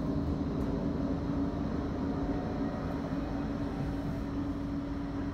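Interior running noise of a Bombardier Flexity 2 tram under way: a steady low rumble with a constant hum.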